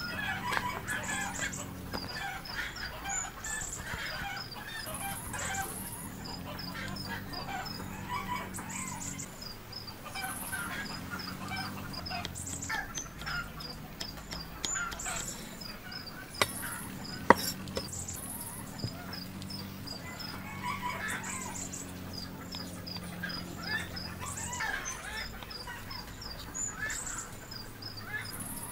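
Outdoor farmyard ambience: poultry calling, with rows of short, high, repeated chirps over it. Two sharp knocks stand out about halfway through.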